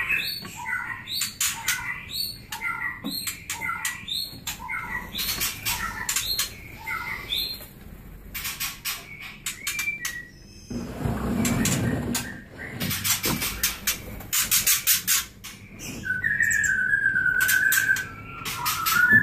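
Juvenile white-rumped shamas calling in an aviary: a busy run of short chirps and sharp clicks, with long steady whistled notes near the start and again a few seconds before the end. A brief rushing noise comes about eleven seconds in.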